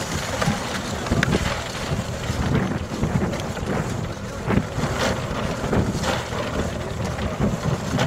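Wind buffeting the microphone in a steady low rumble, with scattered knocks and clicks as ammunition packs and cardboard are handled and dropped into wooden crates.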